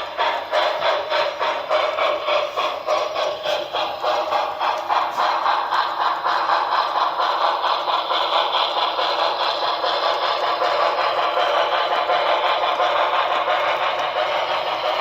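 HO scale Broadway Limited Paragon4 New York Central Hudson 4-6-4 model steam locomotive running, its onboard sound system playing steady steam exhaust chuffs at about four a second, with a clatter of wheels on the track.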